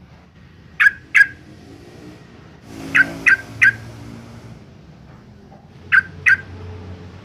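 Yellow-vented bulbul (trucukan) giving short, sharp, loud call notes. Two notes come about a second in, three in quick succession around three seconds, and two more near six seconds.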